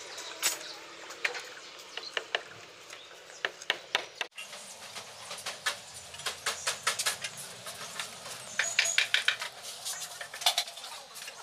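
Steel reinforcing bars clinking and knocking against one another as they are handled, a quick run of sharp metallic clicks that comes thickest in the second half.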